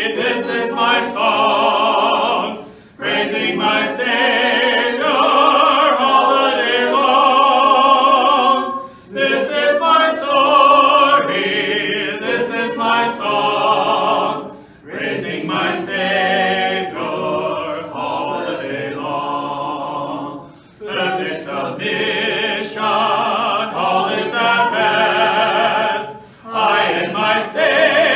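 Group of voices singing a hymn a cappella in harmony, with no instruments. The phrases are broken by short pauses for breath about every five to six seconds.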